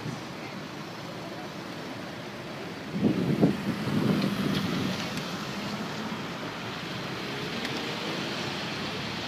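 Steady rushing roar of heavy storm surf and wind. About three seconds in, a louder rumbling gust rises sharply and fades over the next couple of seconds.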